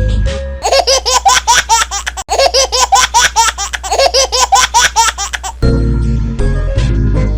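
A synthesized jingle over a deep bass. About half a second in, the melody gives way to a high-pitched, laugh-like sound effect that repeats quickly, about five times a second, and the jingle's notes return about a second before the end.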